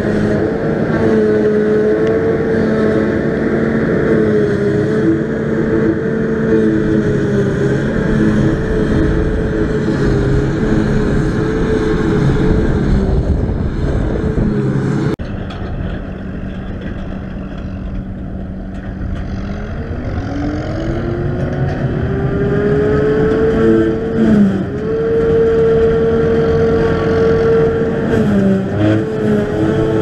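Claas Jaguar 840 self-propelled forage harvester running under load while lifting silage, its engine and chopper giving a loud, steady high hum. About halfway through the sound drops suddenly to a quieter, duller level. Then the hum rises in pitch and grows louder over a few seconds and holds steady again.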